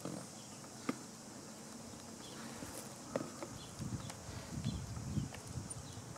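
Large-scale model steam locomotive and freight cars rolling slowly along garden track: a faint steady motor hum with scattered clicks of wheels over the rails.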